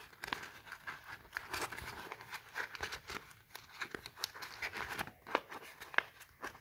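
Scored polypropylene sheet crinkling and clicking as its folds are squeezed and pushed into place by hand: irregular small crackles, with a few sharper clicks in the second half.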